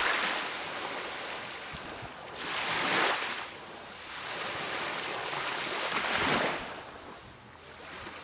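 Small waves washing onto a beach: a steady hiss of surf that swells twice, about three seconds apart.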